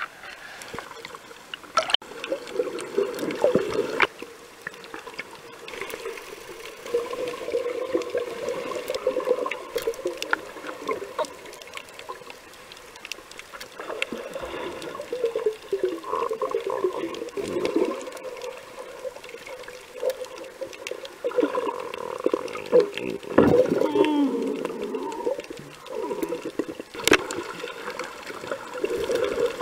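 Muffled underwater sound of moving water and bubbles, picked up by a camera under the surface while snorkeling. A continuous low, wavering rush runs throughout, with scattered sharp clicks.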